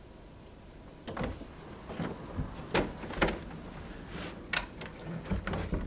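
A door with a brass knob being opened: several separate clicks and knocks from the knob, latch and door, spread unevenly over a few seconds.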